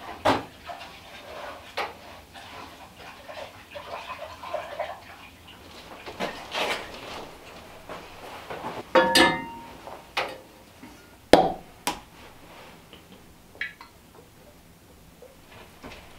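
Kitchenware being handled on a wooden table: scattered knocks and clatter of pans, dishes and bottles. There is one ringing clank about nine seconds in and two sharp knocks a couple of seconds later.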